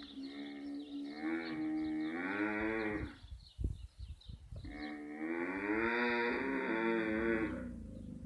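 Dromedary camels calling during mating: two long, drawn-out moaning calls of about three seconds each, wavering in pitch, with a few low thuds in the pause between them.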